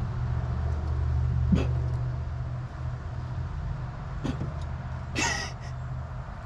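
A steady low mechanical hum, stronger for the first few seconds and then a little quieter, with a few short clicks and a brief noisy burst about five seconds in.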